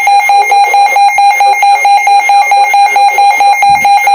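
Emergency alert tone: a loud, steady high beep pulsing rapidly and evenly, signalling a severe thunderstorm warning.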